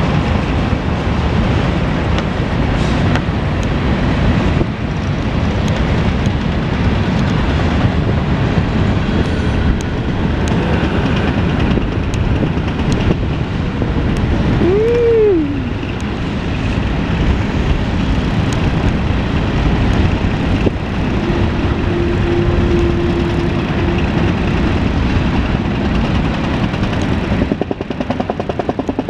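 Freight cars of a mixed freight train rolling past close by: a steady rumble and clatter of steel wheels on the rails. A brief rising-and-falling squeal comes about midway, and a steady squeal holds for a few seconds later on.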